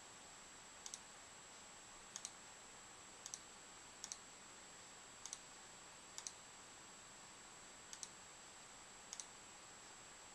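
Faint computer-mouse clicks, eight of them at uneven gaps of about a second, each a quick press-and-release double tick. Low hiss and a steady high-pitched whine run underneath.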